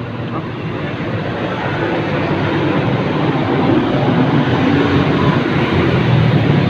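A motor vehicle's engine running close by, growing steadily louder.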